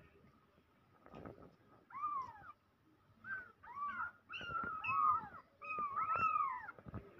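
Young kittens mewing: short, high, rising-and-falling calls that start about two seconds in and come faster from about four seconds on, some overlapping.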